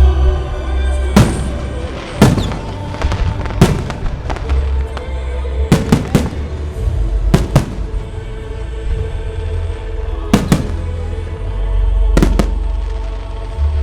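Fireworks bursting overhead: about a dozen sharp bangs, several coming in quick pairs or triplets, over music playing and a low rumble.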